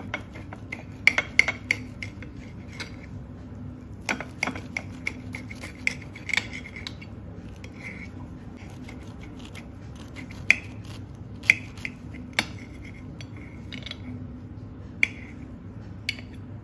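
Knife cutting through crisp toasted bread on a ceramic plate: irregular clusters of crunches and sharp clicks as the blade saws through the crust and touches the plate, with a few single loud ticks later on. A steady low hum runs underneath.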